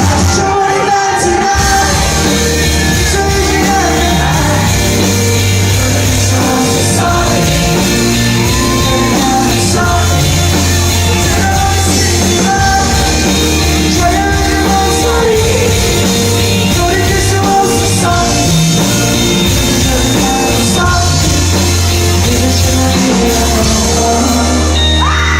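A live rock band plays loudly through the PA: drums, a heavy bass line and guitars, with singing over them.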